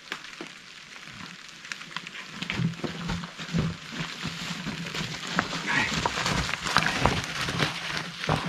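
Mountain bike climbing wet limestone steps: repeated knocks and clatter of the tyres and bike on the rock, with hissing tyre and trail noise. Over it comes the rider's hard breathing from the effort.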